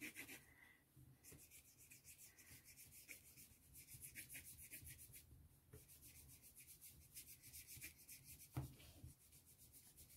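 Faint, repeated rubbing of a water brush stroking over wax pastel on a paper cutout as the colours are blended, with a single light knock about eight and a half seconds in.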